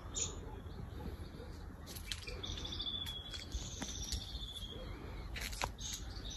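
Birds chirping outdoors, with a drawn-out, slightly falling trill starting about two and a half seconds in. A few sharp clicks come near the end, over a steady low rumble.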